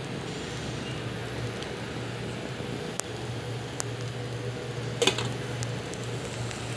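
Steady hum of an induction cooktop's cooling fan under a pot of broth, with a few light clicks and a louder clatter about five seconds in as a glass lid is set on the pot.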